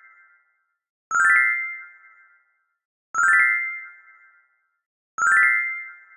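An electronic chime sound effect repeating three times, about two seconds apart: each a bright ding with a quick high sparkle on top, ringing out for about a second, with silence between.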